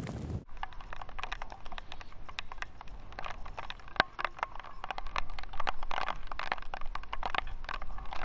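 Wind rumble on the microphone cuts off about half a second in, leaving many irregular sharp taps and clicks on a hand-held GoPro's waterproof housing as rain drops hit it and it is carried along.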